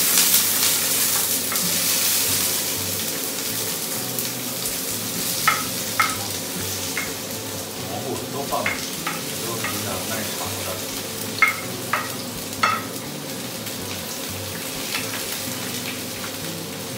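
Chopped onion, mushrooms and green pepper sizzling in hot oil in a steel paella pan as they are pushed in and stirred with a wooden spatula. The sizzle is loudest as the vegetables go in and then settles, with a few sharp taps of the spatula against the pan.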